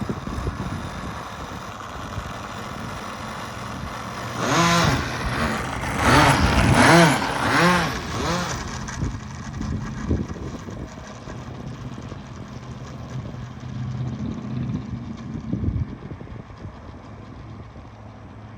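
Small nitro glow engine of a Seagull Delta 40 RC model plane idling while it taxis. It revs up and back down several times about four to eight seconds in, then settles back to idle. Its low-speed needle has just been richened because the idle was too lean.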